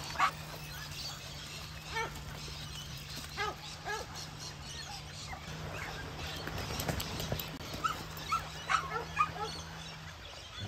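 Dogs giving short yips and barks now and then, over a steady low hum.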